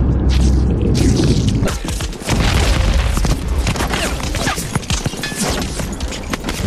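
Action sound effects: a low boom that rumbles away about a second in, then a busy clatter of crashes and cracks.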